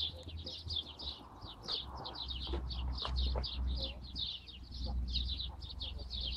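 A bird singing a fast, even run of short, high, falling chirps, about four or five a second, over a low steady rumble.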